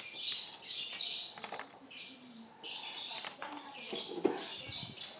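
Small birds chirping in quick bursts, with a few light clicks and taps among them.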